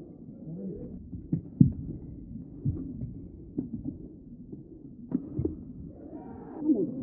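Badminton rally: rackets striking the shuttlecock and shoes thudding on the court, a sharp knock about every second, sounding dull and muffled.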